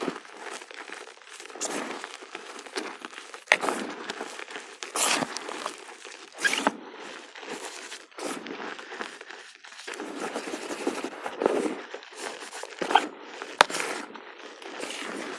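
Dry reformed gym chalk being crushed by hand: a run of crisp, irregular crunches and crumbling, with sharp louder snaps as blocks break apart several times.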